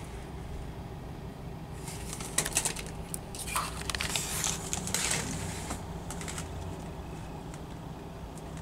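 Front-loader garbage truck's diesel engine running steadily at a distance, with a few seconds of sharp clattering and rattling in the middle.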